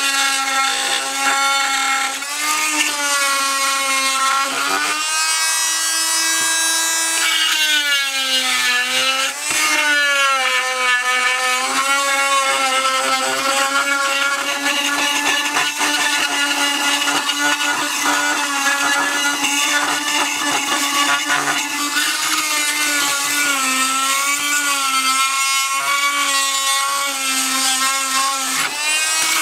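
Chicago Electric oscillating multi-tool with a carbide tile and masonry blade, running continuously as it works at the edge of an old floor tile. It makes a buzzing whine with a scraping rasp, and its pitch wavers up and down throughout, rising for a few seconds around the sixth second.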